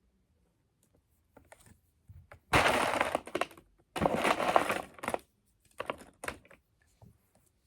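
Small plastic straw-connector toy pieces clattering and rattling together in two bursts of about a second each, with scattered separate clicks before and after.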